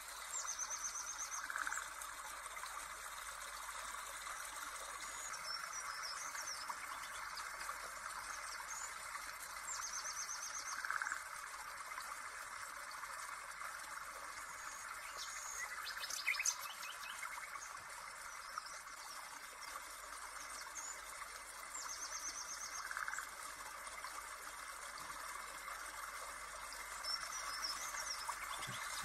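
Nature-sound backing track: steady running water with birds chirping and trilling over it, the same trill coming back about every ten seconds. A brief sharper sound stands out about sixteen seconds in.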